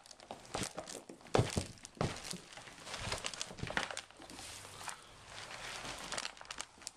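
Black plastic plant pot being flexed and worked off a root ball of potting compost: irregular crinkling and scraping, with a few sharper knocks, the loudest about a second and a half in.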